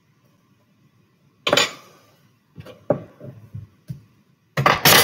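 Kitchenware knocking on a countertop as a glass mixing bowl and dishes are handled: one sharp knock about a second and a half in, a few lighter knocks after it, then a louder clatter near the end.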